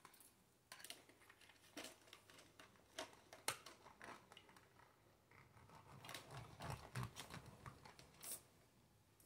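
Faint, scattered clicks and knocks of plastic toys being handled: building blocks and a plastic toy saw knocking together.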